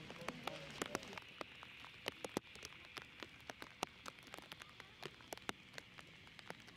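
Light rain: scattered drops tapping sharply and irregularly over a soft, steady hiss.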